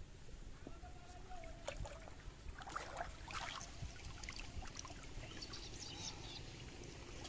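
Pond water sloshing and dripping as a person wades waist-deep and moves a bamboo tube fish trap through the water, with a cluster of small splashes about three seconds in.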